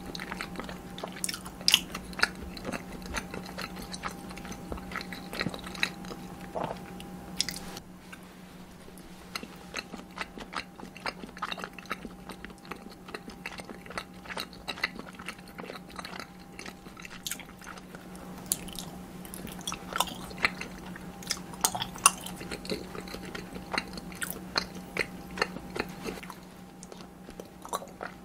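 Close-miked chewing and biting of food, many small sharp crunchy and wet clicks in an uneven run, over a steady low hum.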